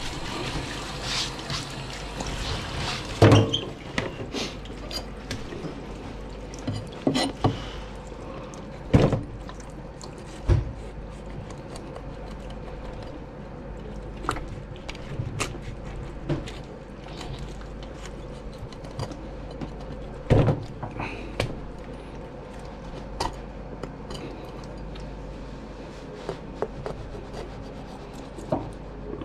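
Tap water running onto a fish on a cutting board, stopping about three seconds in, followed by scattered sharp knocks and thuds of a knife and the fish against a plastic cutting board as a red sea bream is cut up. The loudest knock comes as the water stops.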